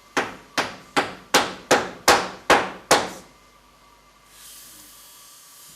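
Hammer driving a nail into plasterboard: eight quick, sharp blows, about three a second, stopping about three seconds in.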